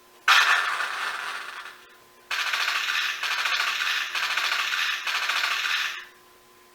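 Gundam-style sound effects played through a small speaker in an LED-lit RX-78-02 Gunpla model: a sudden noisy blast that fades over about two seconds, then a steady rough rushing noise for about four seconds that cuts off suddenly.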